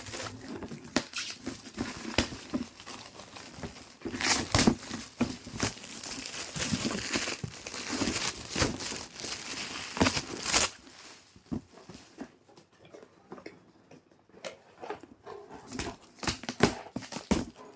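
Gift-wrapping paper crinkling and tearing as a present is unwrapped by hand, in irregular rustles with sharp crackles. It is busiest for the first ten seconds or so, then turns to fainter, scattered rustles and taps.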